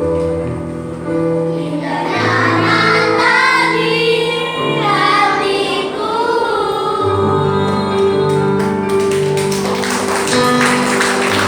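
A group of Sunday school children singing a Christian song over sustained musical accompaniment. A broad noise swells in near the end.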